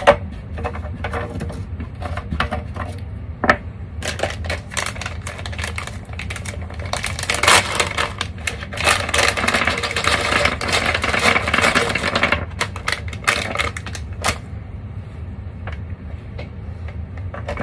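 A plastic bag crinkling as it is opened and handled, with small plastic nuts clicking and clattering as they are tipped out and spread across a desk. The crinkling is densest from about seven to twelve seconds in, with scattered clicks before and after.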